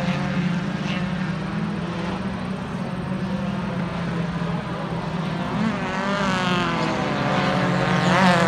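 Stock car engines running as several cars race around a dirt track, a steady drone with engine pitch rising and falling as the cars accelerate and lift. Near the end a car revs up and grows louder as it comes closer.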